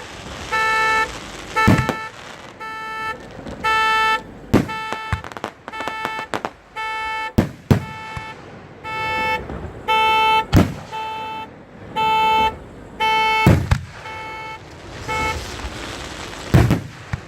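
A car alarm sounds its horn in a steady, regular run of honks. Sharp firework bangs go off every few seconds over it, and the loudest comes near the middle.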